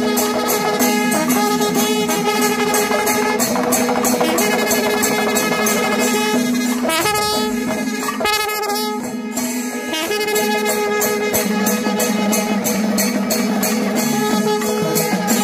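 Temple-festival music: a wind instrument holds a steady melody over a fast, even beat of drums and cymbals, about four strokes a second.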